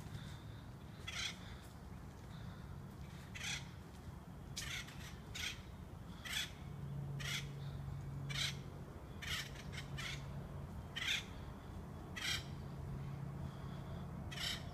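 A bird calling over and over: about a dozen short, harsh calls, roughly one a second, some coming in quick pairs, over a faint low steady hum.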